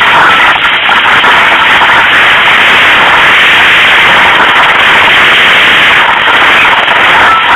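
Loud, distorted rushing and crackling of wind buffeting the camera microphone in flight, steady throughout.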